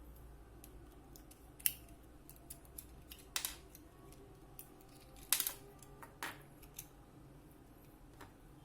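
Scattered sharp plastic clicks and taps as a small digital hygrometer is handled and its batteries are taken out, the loudest about two, three and a half, and five and a half seconds in.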